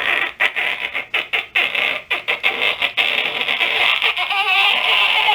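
A person imitating a Geiger counter with the mouth: irregular crackling clicks that thicken into a dense crackle about three seconds in.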